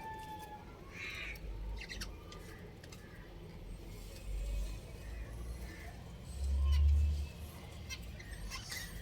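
Budgerigars chirping in short, scattered calls mixed with small clicks. A brief low rumble comes near the end.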